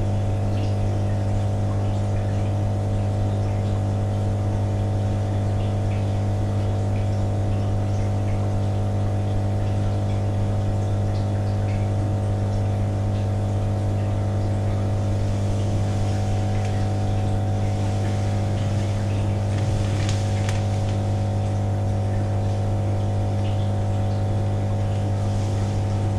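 Steady low machine hum with several faint higher tones, unchanging throughout, with a few faint clicks about three quarters of the way through.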